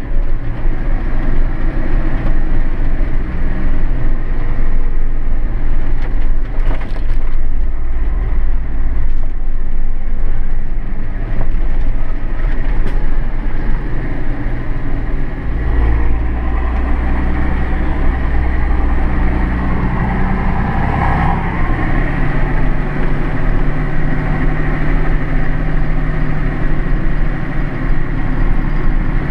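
Massey Ferguson 6499 tractor's six-cylinder diesel engine running under way, heard from inside the cab. The engine note shifts about two-thirds of the way in, rising and then holding at a higher pitch.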